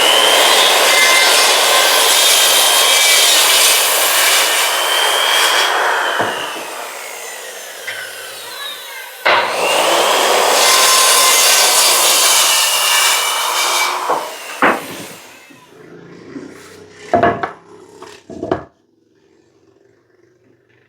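Electric saw cutting wood twice, each cut a few seconds long, the motor's whine dropping in pitch as the blade spins down after each cut. A few short wooden knocks follow near the end.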